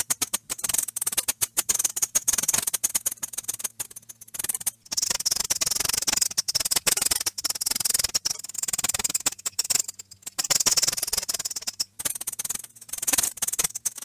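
Rat squeaking: rapid, high-pitched clicking squeaks in bursts, with short pauses about four seconds in and near twelve seconds.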